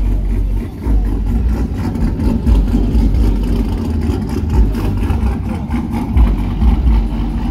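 A car engine running loudly, with deep low thumps pulsing irregularly underneath.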